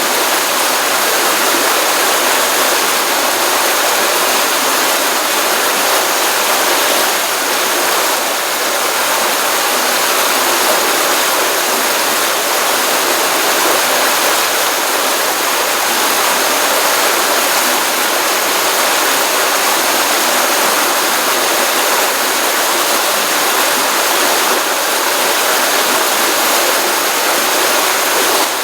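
Stream water running into a pond: a steady, continuous rushing and splashing of flowing water with no breaks.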